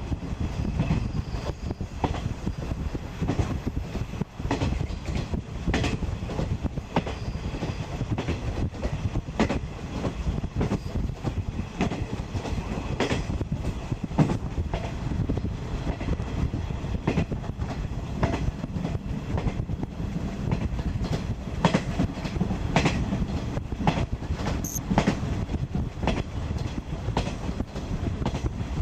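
Ride noise inside a 50-series passenger coach under way: a steady low rumble of wheels on rail with sharp clicks from the rail joints throughout.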